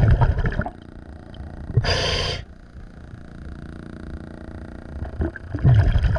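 Scuba diver's breathing underwater through a regulator: a rumbling burst of exhaled bubbles at the start, a short hiss of inhaled air about two seconds in, then another bubbly exhale near the end.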